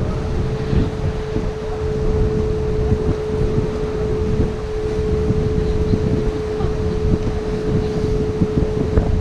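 Canal boat's engine running with a steady hum, with wind buffeting the microphone in a low, fluttering rumble.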